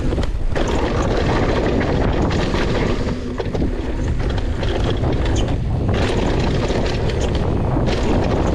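Mountain bike riding down a dirt singletrack: wind buffets the microphone over the rumble of the tyres on dirt and the clatter and ticks of the bike rattling over small bumps.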